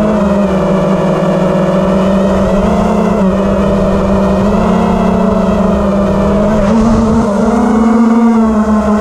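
Wizard FPV racing quadcopter's brushless motors and propellers whining loudly in flight, picked up by the camera riding on the quad. The pitch holds steady but wavers up and down as the throttle changes.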